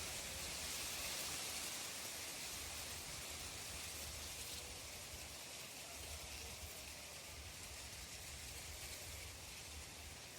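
Steady rain falling, a soft, even hiss with no distinct drops or other events standing out.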